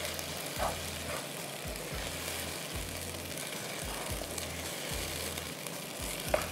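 Sliced tomatoes and onion with ginger-garlic paste frying in oil in a non-stick pan, sizzling steadily as a wooden spoon stirs them, with a light knock near the end.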